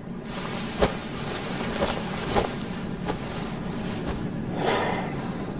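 Fabric rustling with a few soft taps, and a longer rustle near the end, over a steady background hiss.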